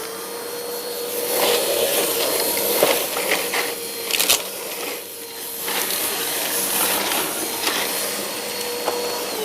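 Vacuum cleaner motor running steadily with a high whine and a rush of air, with a few brief knocks of handling. It is switched off near the end, and its pitch falls as the motor winds down.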